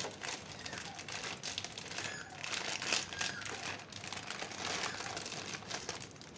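Plastic wrapper of a Shin Ramyun instant-noodle packet crinkling and rustling as it is handled, in dense irregular crackles.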